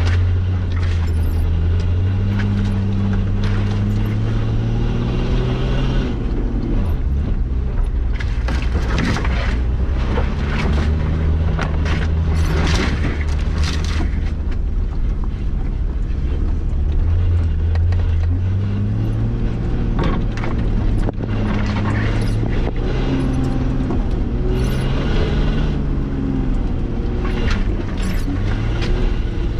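Nissan Patrol Y60 engine working off-road, its revs rising and falling several times, with repeated knocks and rattles as the vehicle rides over rough ground.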